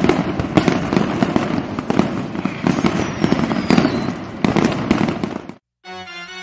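Fireworks bursting and crackling densely, with a thin falling whistle near the middle. They cut off about five and a half seconds in, and a keyboard melody begins.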